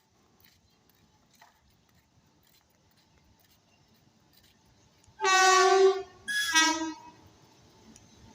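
Horn of a WAG-9 electric locomotive sounding two blasts about five seconds in: the first nearly a second long, the second shorter and slightly lower in pitch.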